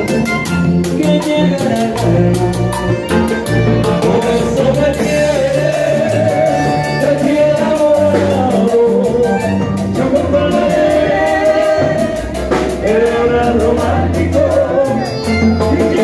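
Live Latin dance band playing with a male lead singer: congas, timbales and cymbal keep a steady beat over bass guitar, with accordion and keyboard in the band.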